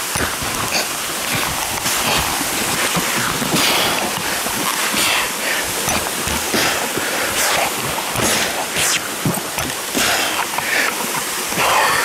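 Waterfall water rushing and spray spattering on and around the microphone: a steady loud wash of noise broken by irregular splashes.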